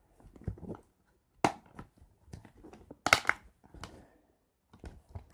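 Plastic DVD case being handled: soft rustling with a few sharp plastic clicks, the loudest a quick cluster about three seconds in.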